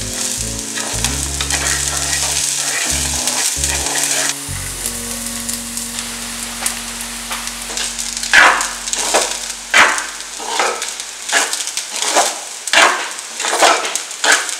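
Chopped vegetables sizzling in hot oil as a spatula stirs them, the sizzle dropping away after about four seconds. Then, with rice in the pan, a spatula scrapes and tosses it in repeated strokes about one or two a second.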